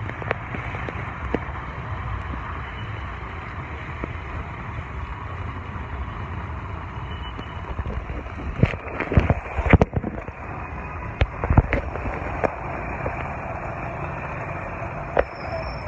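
Heavy rain and road traffic on a wet street: a steady rushing hiss of rain and tyres over a low engine rumble, with a few sharp knocks and taps a little past the middle.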